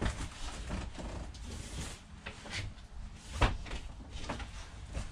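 Boxed items and cardboard packaging being handled and set down: scattered knocks and rustles, the loudest knock about three and a half seconds in.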